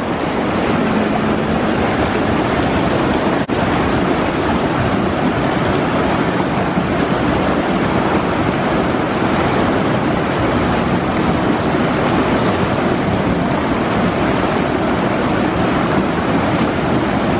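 Rushing creek water tumbling over rocks, a steady, loud noise broken by a momentary dip about three and a half seconds in.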